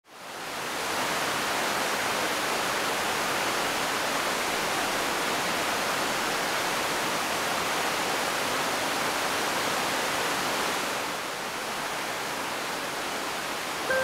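River water rushing over rocks in white-water rapids: a steady, even rush that fades in over the first second and turns a little quieter about eleven seconds in.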